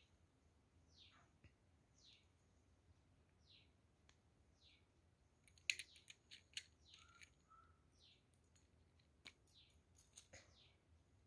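A faint bird repeating a short falling chirp about once a second. Sharp plastic clicks come in a cluster in the middle and again near the end, the loudest in the middle, from mini lipstick tubes and their clear caps being handled.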